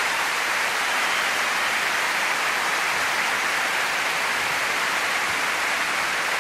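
Steady, even hiss of noise with no tune or rhythm, like static or heavy rain.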